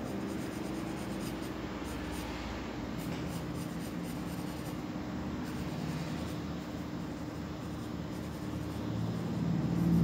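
Graphite pencil scratching on drawing paper in short shading strokes, over a steady low hum that grows louder near the end.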